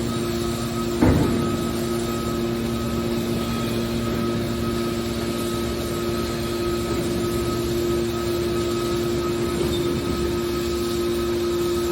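Scrap metal baler press running, its hydraulic pump and motor giving a steady hum, with a single sharp metal clank about a second in.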